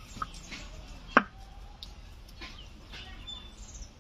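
A single sharp knock about a second in, with faint bird chirps.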